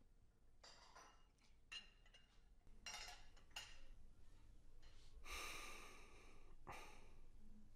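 Near silence: quiet room tone with about six faint, short, breathy noises, the longest about five seconds in.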